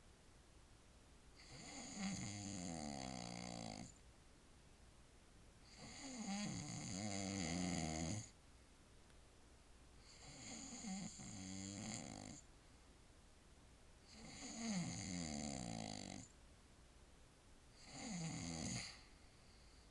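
A man snoring in deep sleep: five long snores, each about two seconds, coming roughly every four seconds with quiet breathing gaps between.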